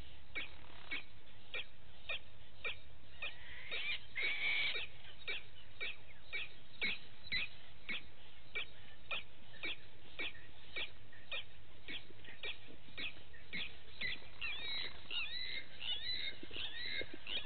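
Outdoor wildlife calls. A steady train of short ticking calls, about three a second, runs throughout. A brief harsh call comes about four seconds in, and quick chirping, gliding bird notes come in near the end.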